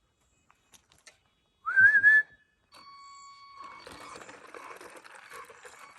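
A person whistles loudly to call a dog: a short, sharp whistle about two seconds in that rises and then wavers. A fainter, steady whistled note follows, then a low rustling.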